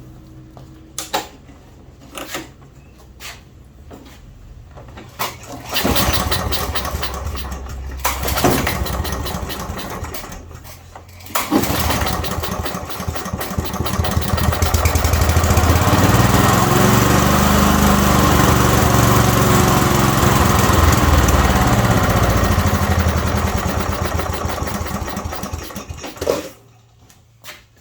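Petrol lawnmower engine being pull-started after its carburettor was cleaned. After some handling knocks, it catches and runs for a few seconds, then drops away. On the next pull it starts and runs loudly for about fifteen seconds, its speed rising and falling, before it cuts out.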